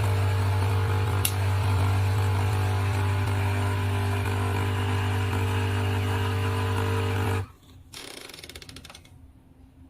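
Coffee machine's pump running with a steady, loud hum while dispensing a small single measure for a cappuccino, then cutting off suddenly about seven and a half seconds in, followed by a faint brief dribble.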